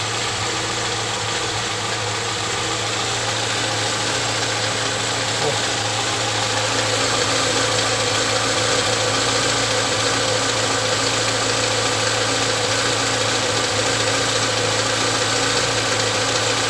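Chevrolet Niva's four-cylinder petrol engine idling steadily, its revs settled; the knock from under the valve cover has gone for now. The owner blames that knock on oil that is too thin draining down during long storage.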